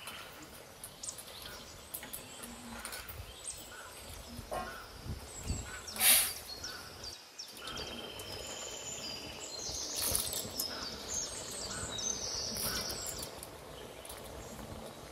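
Birds chirping on and off, with a single sharp knock about six seconds in, the loudest sound, and a few lighter clicks.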